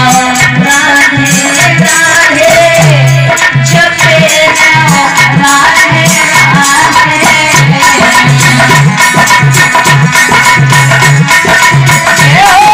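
Hindi devotional bhajan music: a gliding melody over a steady, repeating tabla beat.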